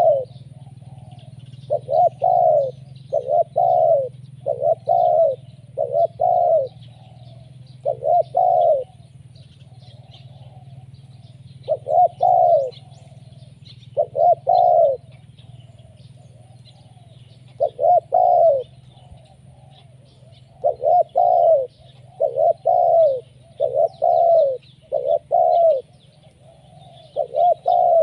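Spotted dove cooing persistently: short phrases of two to four coo notes, each note dipping in pitch at its end, repeated every one to two seconds.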